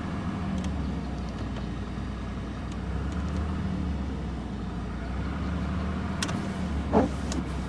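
Jaguar XJ6 straight-six idling steadily after years of sitting, with an idle the owner calls weird. A few faint clicks, and a short sharper sound near the end.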